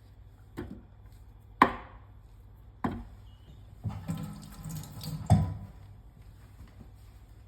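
Sharp knocks and clatter of food preparation in a kitchen, about five separate hits, the loudest about a second and a half in and a small cluster around four seconds in.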